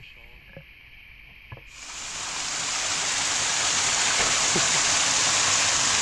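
Water showering down inside a cave, close to the microphone. After a quiet start with a few faint knocks, the rush of water swells about two seconds in and stays loud and steady.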